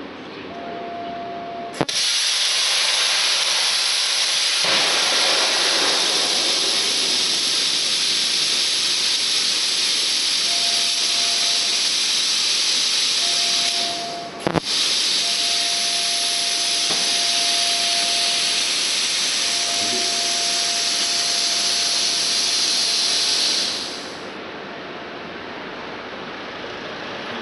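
Loud steady hiss, like rushing air or steam, that starts abruptly about two seconds in, breaks off for a moment around the middle and stops about three seconds before the end. A faint steady tone comes and goes beneath it.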